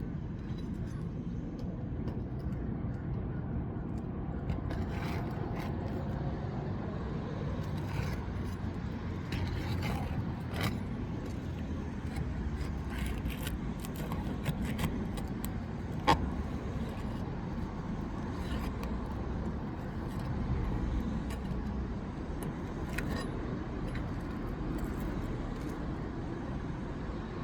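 Scattered light scrapes and clicks of hand work on asphalt roof shingles during a repair attempt on creased shingles, over a steady low rumble, with one sharp click about sixteen seconds in.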